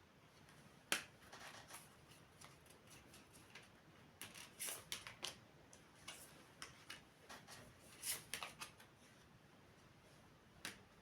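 Faint, irregular small clicks and taps: a sharp one about a second in, a busier run of them in the middle, and one more near the end.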